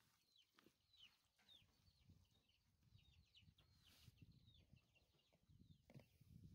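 Faint chirping of birds outdoors, short high falling notes about two or three a second, over soft low bumps of raw chicken pieces being moved on a steel tray.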